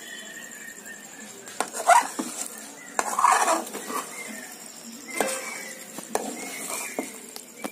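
Perforated steel ladle stirring thick halwa in a metal kadai, scraping along the pan and knocking against its sides at uneven intervals.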